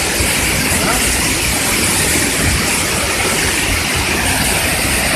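Waterfall: falling water rushing in a steady, loud, unbroken noise.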